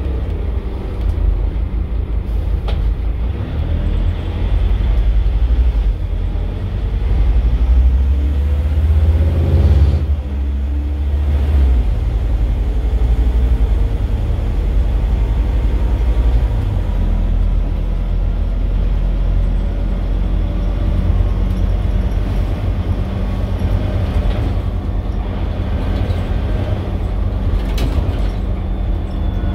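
Scania DC9 five-cylinder diesel of a city bus pulling hard after a kickdown through its ZF six-speed automatic, the engine and gearbox note rising for about ten seconds until a gear change, then running more steadily.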